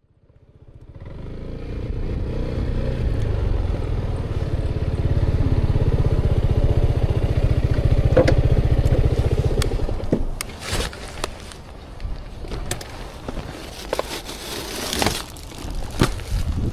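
Delivery motorcycle engine running under way, its low pulsing rumble building over the first couple of seconds and holding steady. About ten seconds in it drops off, and a string of sharp clicks and knocks follows.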